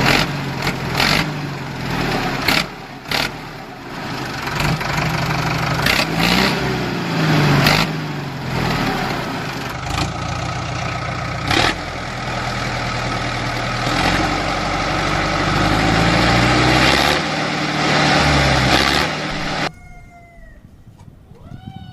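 A motor running loudly, its pitch rising and falling, with many sharp clicks throughout; it stops suddenly near the end.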